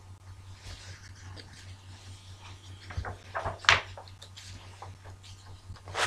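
Steady low electrical hum under a quiet room, with a few brief rustling noises a little past halfway, the loudest just under four seconds in, and one more near the end.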